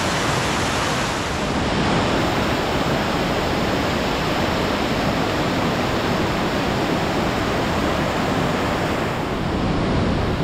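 River water rushing steadily and loud, a dense, even sound without breaks.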